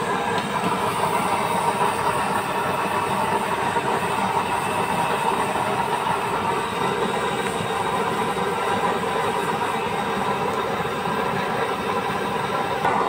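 Homemade waste-oil burner stove burning with a steady, even rushing noise from its blue flame.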